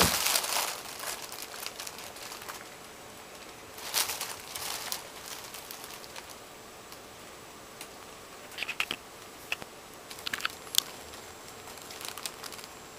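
Thin plastic bag crinkling and rustling as a cat moves inside it and another cat pokes at it. A loud burst of crinkling comes at the start and another about four seconds in, then scattered small crackles.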